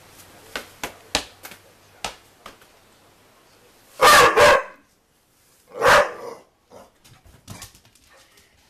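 Pit bull puppy barking: a quick double bark about four seconds in and another single bark near six seconds, with light knocks and taps before and after.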